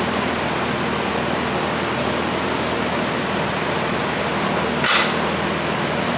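Steady fan noise with a low hum, with one short hiss about five seconds in.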